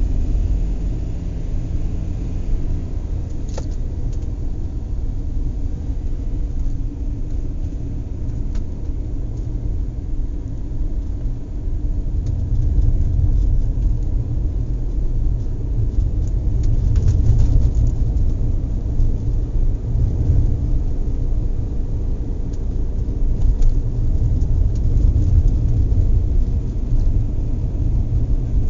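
Inside a car driving along a road: a steady low rumble of engine and tyres, with the cabin and load shaking and giving a few faint clicks and rattles.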